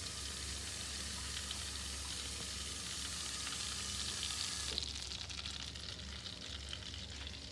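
Butter melting in a pan for a roux, sizzling with a steady hiss that drops away about five seconds in.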